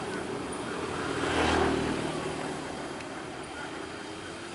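A road vehicle passing close by. Its noise swells to a peak about a second and a half in, with a low rumble, then fades away.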